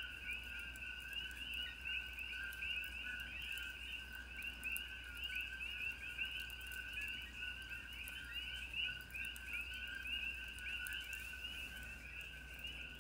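A dense chorus of coquí frogs: many overlapping two-note 'ko-kee' chirps, each a lower note followed by a higher rising one, repeating without pause.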